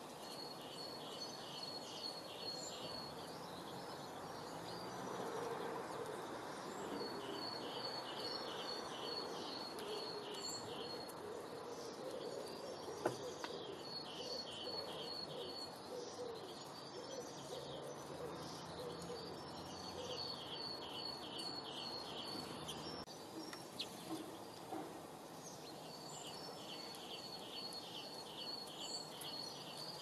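A songbird repeating a short song of about ten quick, even, high notes every five or six seconds, over a steady background hiss.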